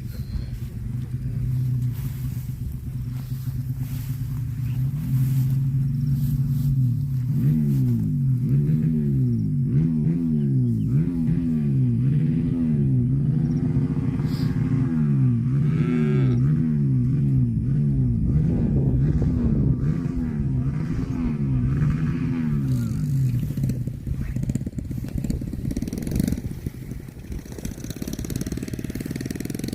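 An engine running steadily, with a pitched sound swinging up and down about once a second through the middle of the stretch.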